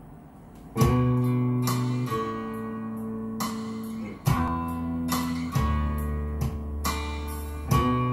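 Guitar introduction of a song played from a vinyl record over hi-fi loudspeakers: strummed acoustic guitar chords over a bass line, starting about a second in, with a new chord struck every one and a half to two seconds.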